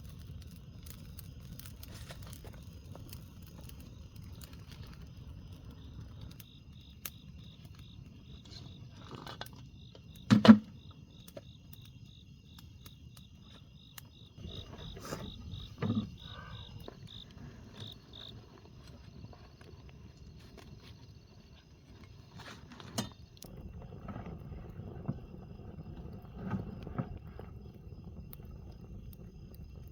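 Crickets chirping steadily, with a pulsing chirp in the middle stretch. A sudden loud knock comes about ten seconds in, a smaller one around sixteen seconds, and a few light knocks later on.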